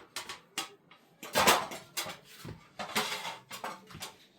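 Pots, dishes and utensils clattering and knocking in a string of sharp sounds, loudest about a second and a half in.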